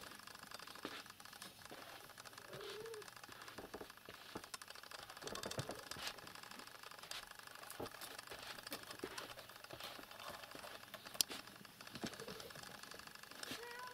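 Faint handling noise from a hand-held camera being carried about: scattered small clicks, taps and rustles, the sharpest about eleven seconds in, with a couple of short faint squeaks.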